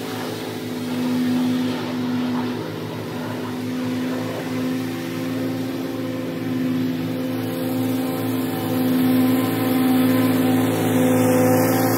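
Commercial lawn mower's engine running at a steady speed while mowing, getting louder over the last few seconds as the mower comes closer.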